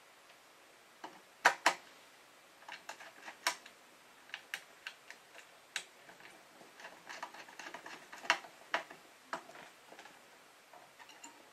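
Small screwdriver working the screw terminals of a DSC alarm control panel's circuit board as bus wires are fastened in: irregular sharp clicks and ticks, the two loudest close together about a second and a half in.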